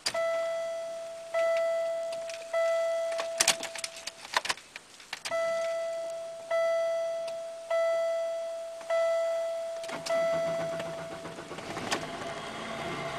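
Dashboard warning chime of a 1998 Oldsmobile LSS dinging repeatedly, about one ding every second and a bit, with a few clicks around four seconds in. About ten seconds in, its supercharged 3.8-litre Series II V6 fires on a cold start and settles into running.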